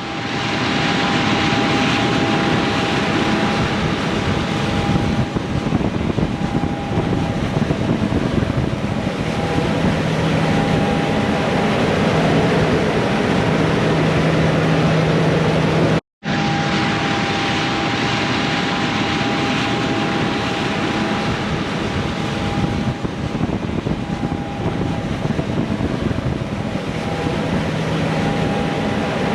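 Large diesel harvest machinery running steadily in a wheat field, a constant engine and machinery drone with a held whine. The sound drops out for an instant about halfway through, then carries on unchanged.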